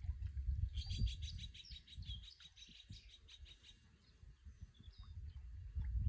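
A small songbird twittering: a quick run of many high chirps about a second in, lasting a couple of seconds, then a fainter call near the end, over a low rumble.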